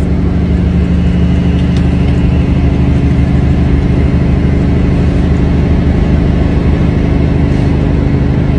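Semi truck's diesel engine running with a steady low drone.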